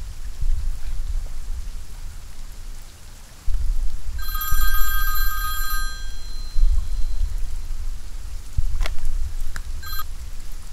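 Mobile phone ringing for an incoming call: one ring of about two seconds, then a short second burst near the end. A steady low rumble runs underneath.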